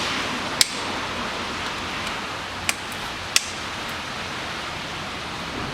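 Three short, sharp metal clicks of a wrench on the camshaft bearing cap bolts as they are loosened, over a steady hiss.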